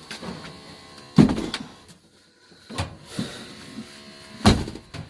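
Two loud knocks, one about a second in and one near the end, with a lighter knock between them, over a faint steady hum.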